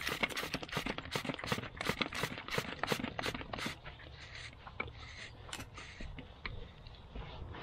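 Grease gun being handled and fitted together: a quick run of metal scrapes and clicks for the first few seconds, then fainter, scattered clicks.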